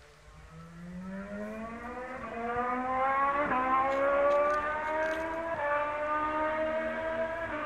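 Single-seater race car's engine heard across the circuit, accelerating: its note climbs steadily in pitch with a few brief breaks, growing louder over the first few seconds and then holding.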